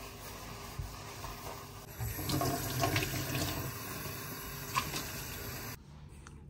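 Water running from a kitchen mixer tap into a steel sink while a hand is rinsed under the stream. The splashing grows louder about two seconds in and cuts off suddenly near the end.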